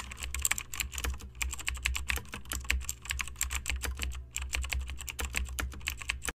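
Computer keyboard typing sound effect: rapid, irregular key clicks over a low hum, cutting off suddenly near the end.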